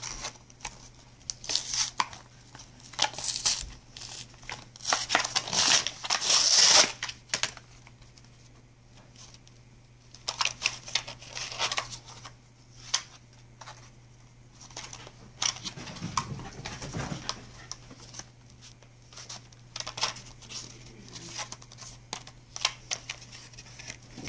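A plastic wrapper of a Pokémon card pack being torn open and crinkled in irregular bursts, loudest and densest in the first seven seconds, then sporadic crackles, over a steady low hum.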